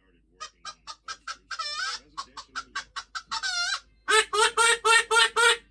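A chicken clucking: a run of short clucks with two longer drawn-out calls among them, then a louder burst of about seven rapid clucks near the end.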